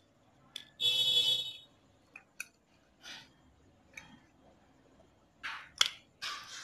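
Scattered clicks and scrapes of a motorcycle brake panel and its speedometer drive gear being handled and turned by hand. A brief high ringing tone sounds about a second in.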